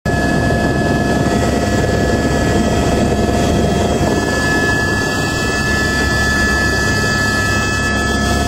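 Helicopter engine and rotor noise in flight, heard inside the cabin: a loud, steady drone with a few faint steady high tones over it.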